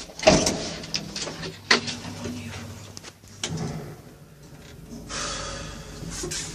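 Lift doors sliding, with sharp knocks about a third of a second in and again near 1.7 s, then a steady hiss later on.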